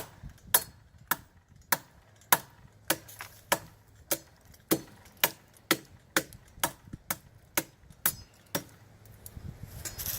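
Machete chopping into a wooden branch: a steady run of sharp strikes, about two a second and getting slightly quicker, stopping about a second and a half before the end.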